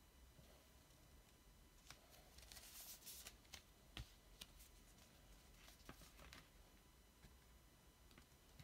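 Faint rustling and light taps of a cardboard LP jacket being handled and turned over, with one sharper tap about four seconds in, over a low hiss.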